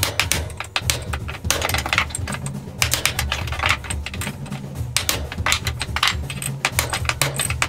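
Wooden mallet knocking rapidly on a hatchet handle, several irregular strikes a second, driving the hewing hatchet head onto the handle. A steady low hum runs underneath.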